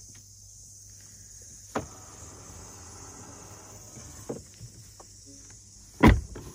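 Insects chirring steadily in the background, with a small click a little under two seconds in, a few faint knocks, and a sharp thump near the end.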